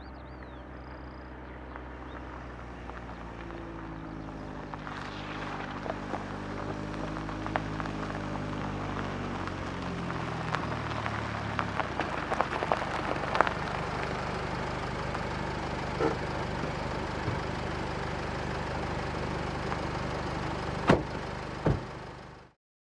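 Car arriving on a gravel driveway: the engine grows louder and falls in pitch as it slows, and the tyres crunch over the gravel with many small stone clicks. Near the end come two sharp cracks, then the sound cuts off suddenly.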